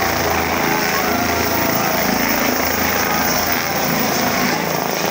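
Helicopter's rotors and engine running loudly and steadily as it lifts off low over a crowd and climbs away, with crowd noise mixed in.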